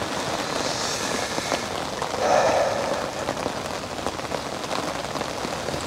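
Heavy rain falling steadily on a fishing umbrella, a dense hiss of drops with water running off its edge, swelling briefly louder about two seconds in.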